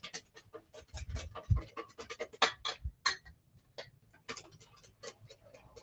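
Wire whisk beating mayonnaise in a stainless steel mixing bowl: fast, uneven scraping clicks of the wires against the metal, several strokes a second, as oil is whisked into the emulsion. A couple of dull knocks about a second in.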